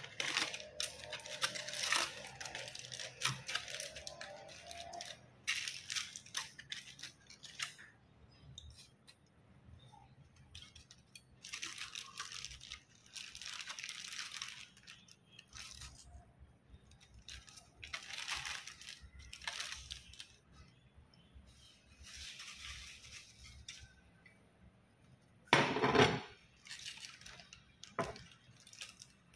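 Aluminium foil and a clear inner wrapping being crinkled and peeled open by hand, in irregular rustling bursts with short pauses between. One louder, fuller burst comes near the end.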